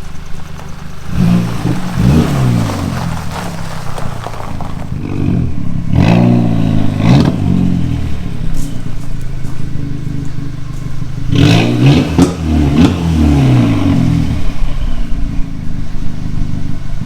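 Car engine running, revved up and back down in three bursts: about a second in, about six seconds in and about eleven seconds in.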